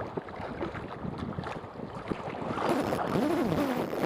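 Wind buffeting the microphone over open sea. About two-thirds of the way in, a wavering pitched sound joins it, rising and falling several times and getting louder.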